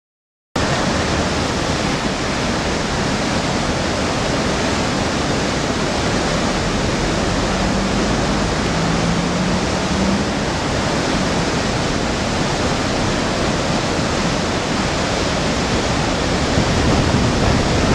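River in flood rushing and churning over rocks and past bridge piers, a loud steady roar that starts suddenly about half a second in.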